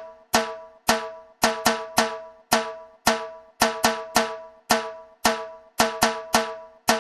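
Drum from a Puneri dhol-tasha set being struck in a sound check, a little over two strokes a second with some quick pairs. Each stroke rings with a clear pitch and dies away.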